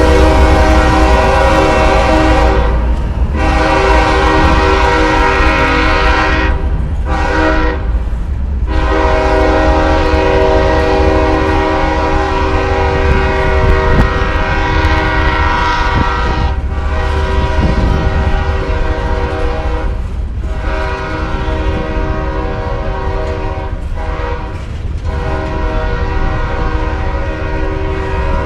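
Diesel freight locomotive's air horn sounding a chord of several steady notes in a long series of blasts, some held for several seconds, broken by short gaps: grade-crossing warnings. A low train rumble runs underneath, and the horn stops right at the end.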